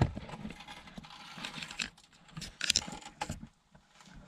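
Handling noise from a camera held and moved by hand: scattered rustles, scrapes and light clicks.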